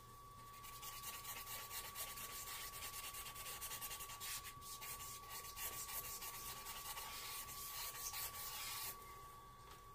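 Fast back-and-forth rubbing on paper as a charcoal drawing is worked over by a gloved hand, a dense run of quick hissing strokes that stops about nine seconds in.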